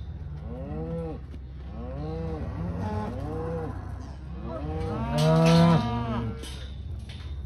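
Beef cows and calves bawling and mooing over and over, the calls overlapping, each rising and then falling in pitch, the loudest a little past the middle. It is the calling of cattle being sorted, calves separated off from the cows.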